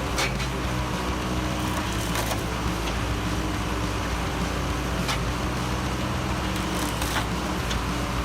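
Log splitter running steadily under power, with several sharp cracks of wood splitting apart.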